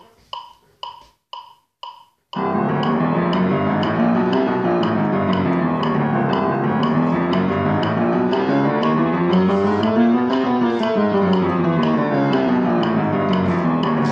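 Electronic metronome beeping four times, half a second apart (120 beats a minute), as a count-in. Then a Kawai piano is played in fast, continuous runs climbing up and down the keyboard, with the metronome still ticking faintly underneath.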